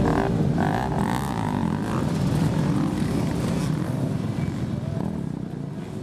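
Several motocross bikes' engines running and revving together on the track, fading out near the end.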